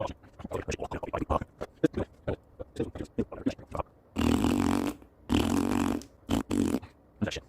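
Pieces of a jigsaw-cut 2x4 joint knocking and clattering against each other in quick irregular taps as they are handled and fitted together, followed by three longer rough rubbing noises of under a second each.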